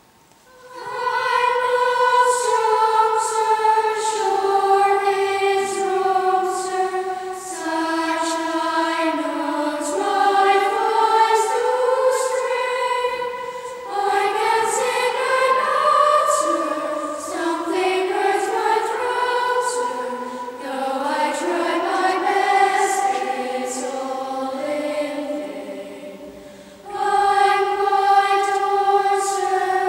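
Children's choir singing, coming in about a second in and continuing in melodic phrases, with a short break between phrases near the end.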